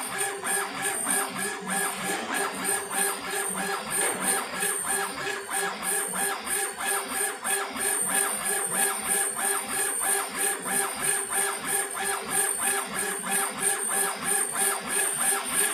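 CNC laser engraving machine's stepper-driven head raster-scanning back and forth over a stone slab: a steady machine whine with a fast, even chatter as the head reverses several times a second.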